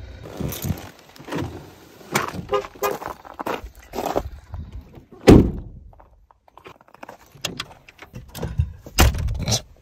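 Ford F-150 pickup doors: clicks and knocks as the driver's door is opened, a loud slam as it is shut about five seconds in, then another door opened and shut with heavy thunks near the end.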